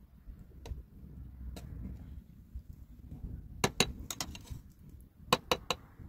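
Sharp knocks, single at first and then in quick groups of two and three, over a low rumble.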